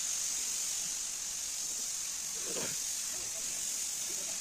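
Gravity-feed air spray gun hissing steadily as it sprays primer-surfacer onto a car bonnet.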